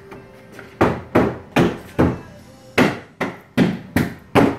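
A 2010 Chevrolet Camaro's plastic rear bumper cover being struck by hand to seat it and snap its tabs into place: about nine sharp thumps in two quick runs, with a short pause a little before the middle.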